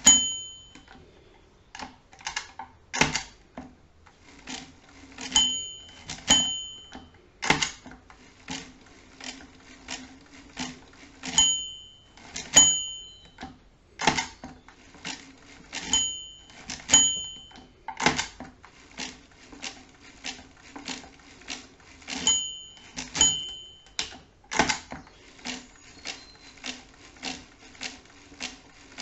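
Schubert DRV mechanical calculator worked by hand crank, with a steady run of clicks and clunks from the turning mechanism. Every five to six seconds a small bell rings twice, the signal to stop subtracting during a division. After each pair of rings comes a louder knock as the carriage is shifted one position.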